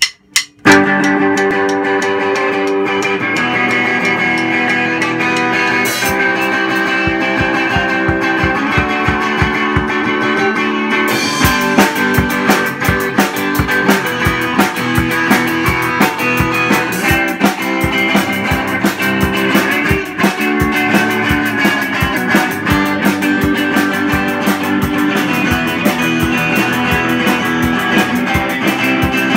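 Garage rock band playing live: electric guitars start the riff, the drum kit comes in with kick and snare hits about six seconds in, and cymbals and full drumming join from about eleven seconds.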